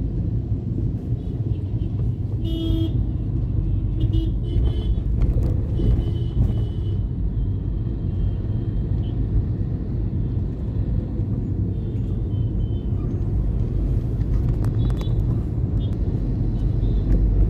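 Steady low rumble of road traffic, with vehicle horns tooting several times; the loudest toot comes about two and a half seconds in, and more follow over the next few seconds.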